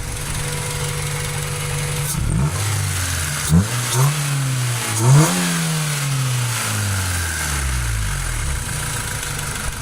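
Honda Civic four-cylinder engine, still on its original intake manifold and throttle body, idling. About two seconds in it is revved several times in quick succession, and the last rev falls slowly back to idle over about three seconds.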